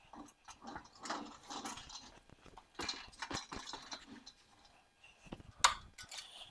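Loaded engine hoist being pushed on its casters across a concrete floor: faint, irregular rattling, creaking and clicking, with one sharper knock near the end.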